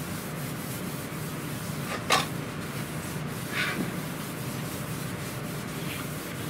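A towel wiping back and forth over a chemical-resistant laminate countertop, a steady rubbing hiss, scrubbing spilled resin off the work surface. There is a short knock about two seconds in.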